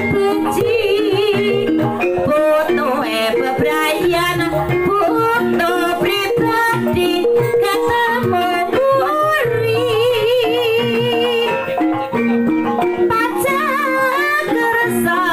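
Javanese gamelan ensemble playing a gending for ebeg: bonang kettle gongs and other bronze metallophones struck in a steady interlocking pattern, with hanging gongs and a kendang drum. A wavering singing voice runs over the instruments.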